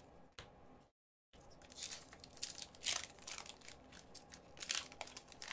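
Wrapper of an Upper Deck hockey card pack being torn open and crinkled by hand, crackling in irregular bursts from about a second in.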